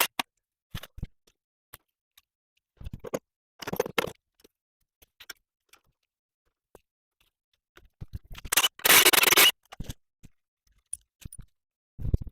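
Hand tools working on metal fasteners: scattered clicks and clinks with short bursts of ratcheting and scraping, the loudest a longer scraping rattle about nine seconds in, and a dull thump near the end.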